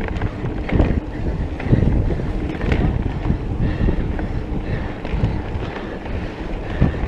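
Wind buffeting the microphone while a mountain bike runs fast down a dirt trail. The tyres rumble over the ground, and the bike rattles and knocks at each bump.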